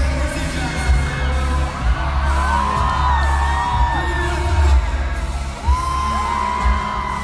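Live pop music: a male singer sings a gliding melody over the band's heavy, steady bass.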